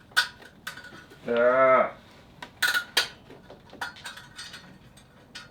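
Small hard objects clinking and knocking in a few scattered sharp clicks as they are handled and dropped, with a short wordless groan about a second and a half in.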